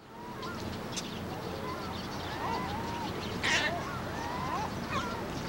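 Waterbirds on a pond, ducks and gulls, giving short calls again and again over a steady low background noise, with one louder, harsher call about halfway through.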